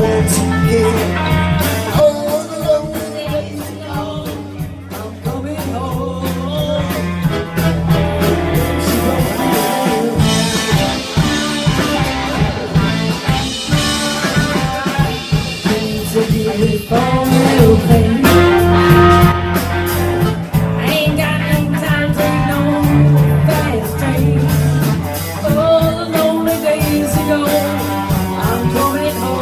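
Live rock band playing loud, with guitar, in a passage without recognised lyrics.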